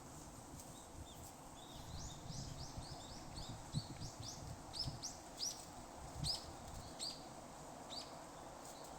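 A bird calling a long run of short, high, arched notes, quick at first and then slowing to about one a second near the end; the uploader takes it for a brown-eared bulbul. Soft low thumps sound underneath.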